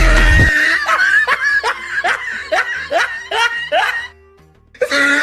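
Loud music with a heavy bass beat cuts off about half a second in and gives way to a run of snickering laughter, short rising 'heh' sounds about three a second for roughly three seconds. After a brief pause, a short loud burst comes near the end.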